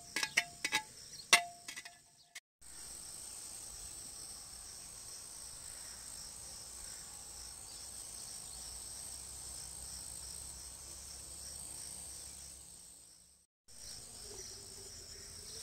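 Insects chirring in a steady, high-pitched drone, cutting out briefly twice. In the first couple of seconds a metal ladle clinks a few times against the clay pot and steel plate.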